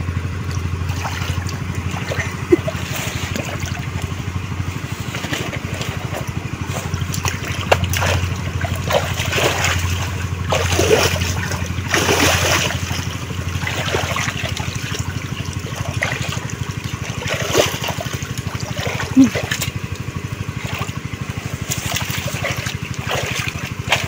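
Muddy water splashing and sloshing as hands dig and grope through a shallow ditch for fish, busiest about halfway through. A steady low engine-like hum runs underneath throughout.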